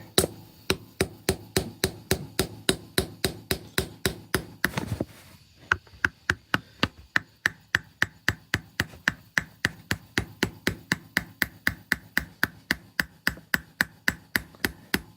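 Hammer tapping rapidly and steadily on a screwdriver wedged between a cylinder sleeve and the engine block, about four strikes a second with a short pause about five seconds in: chipping away the sleeve's top ridge to break it loose for removal.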